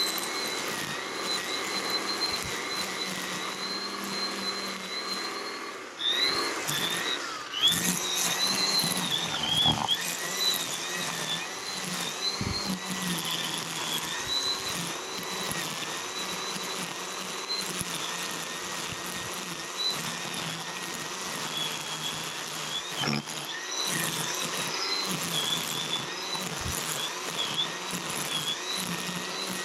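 Cordless Milwaukee quick-connect outdoor power tool running under its electric motor, a steady high whine that wavers in pitch as it works. It gets louder and more uneven for a few seconds about a third of the way in.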